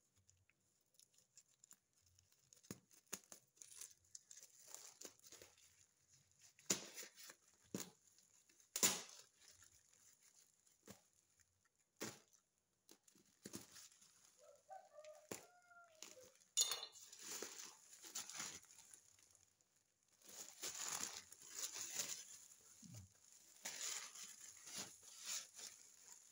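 Black plastic parcel wrapping being slit with a knife and torn and crinkled open by hand: scattered scrapes and rips, with steadier crinkling in the last third. A short bird call about halfway through.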